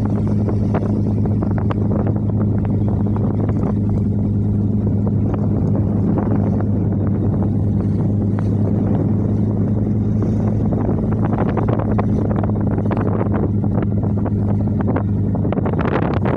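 Fishing boat's engine running steadily under way, a constant low hum, with gusty wind noise on the microphone.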